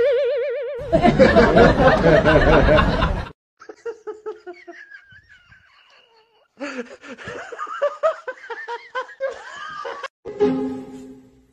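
People laughing in two stretches with a near-quiet gap between them, and a snatch of music near the end.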